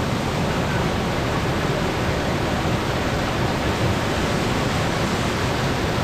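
Waterfall in heavy monsoon flow, white water rushing over rocks right at the microphone: a steady, even rush of water.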